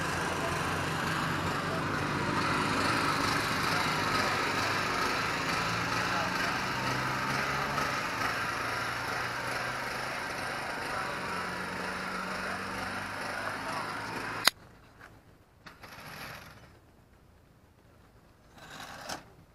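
An engine running steadily, its pitch drifting a little, which cuts off abruptly with a click about three-quarters of the way through. After that it is much quieter, with two short gusts of wind on the microphone.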